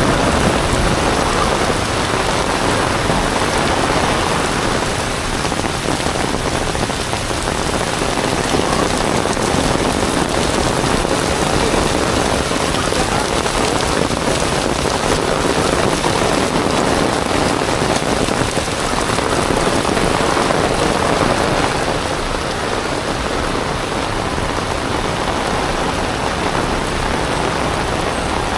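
Heavy rain pouring steadily onto paved sidewalk and street, a dense, unbroken hiss.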